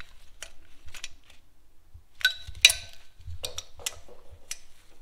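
Hand tools clicking and clinking on metal as the cylinder head nuts of a BMW R100 boxer engine are tightened, a handful of separate sharp strikes, the loudest between two and three seconds in.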